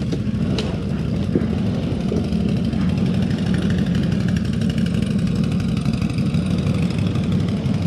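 CFMoto CForce 1000 ATV's V-twin engine running at steady low revs while rolling down a steep slope, held back by engine braking.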